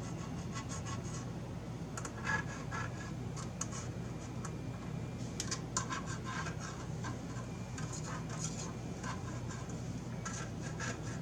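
Light scratching, scraping and small clicks of hardware being handled and positioned, in irregular clusters, over a steady low hum.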